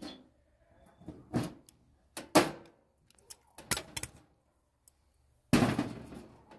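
A series of irregular knocks and clunks, then a louder, longer clatter about five and a half seconds in that fades over about a second.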